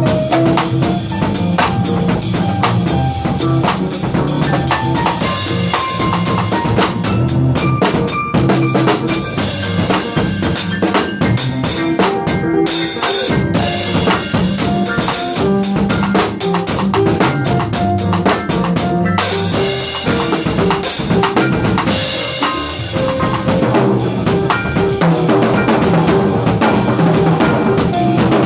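Live funk jam: a drum kit played in a busy syncopated groove with snare rimshots and bass drum, over a bass line and other held pitched notes.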